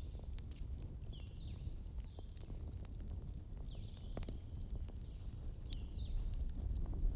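Bonfire burning with a low rumble and scattered pops and crackles. Birds chirp in the background: several short falling chirps and one longer high whistle in the middle.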